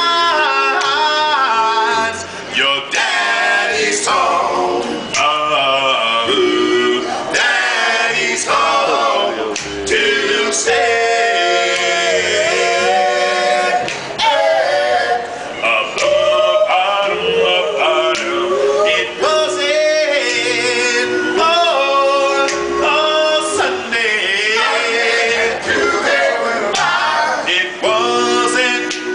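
A group of men singing a cappella, several voices together with no instruments, loud and unbroken.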